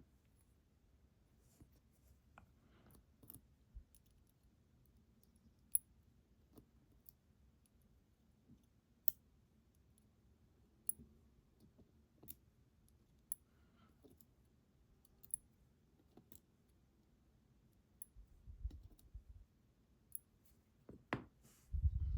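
Faint, sparse small metal clicks, about one a second, as lock pins and springs are loaded into a challenge lock's chambers during reassembly. There are a couple of soft low bumps near the end.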